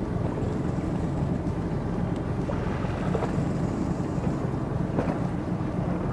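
Fishing boat's engine running with a steady low rumble, with wind on the microphone.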